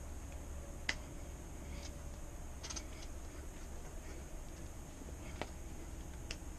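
Quiet outdoor background with a steady low hum and a few faint, scattered clicks and taps, about four over several seconds.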